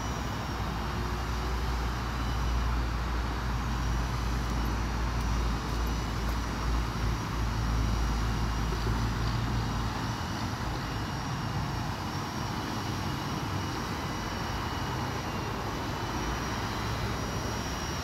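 Skydio R1 drone in flight, its rotors making a steady whine over a low rumble. The rumble drops away about ten seconds in.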